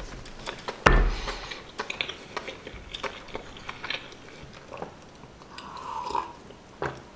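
Close-up mouth sounds of a person chewing food, small wet clicks throughout, with one louder knock about a second in. A short slurping sip from a mug comes around six seconds in.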